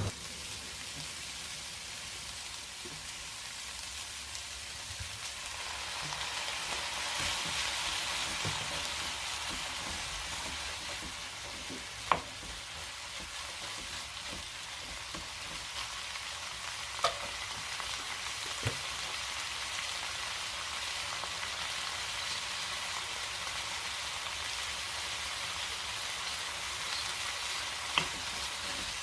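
Food sizzling steadily in a frying pan as it is stirred, the sizzle growing louder about six seconds in, with a few sharp clicks of a utensil against the pan.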